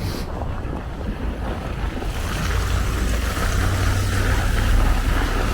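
Wind buffeting the microphone, a steady low rumble, with a broad hiss swelling from about two seconds in.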